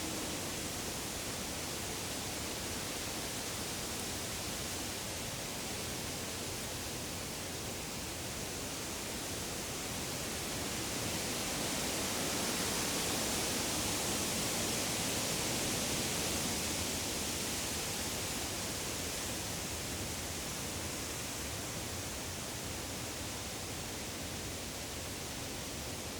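Wind rustling through the leaves of deciduous woodland as a steady hiss, swelling in a stronger gust around the middle and then easing off.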